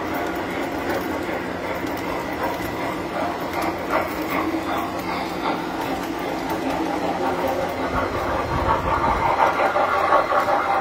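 Tinplate toy trains running on the layout: the steady hum of the locomotives' motors and the clatter of metal wheels over the track joints. The clatter grows louder and more rhythmic about eight seconds in.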